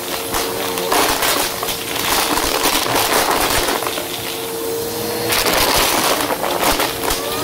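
Bissell upright vacuum running with a steady motor whine over carpet while it sucks up pennies, which clatter and rattle through it as many quick clicks.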